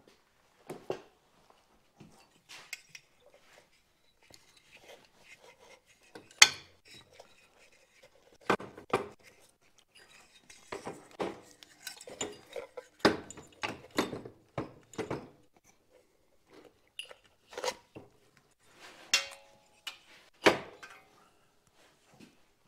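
Irregular metal clinks and knocks of parts and hardware being hand-fitted to a motorcycle engine and frame, with the sharpest knock about six seconds in and busier spells of clinking around the middle.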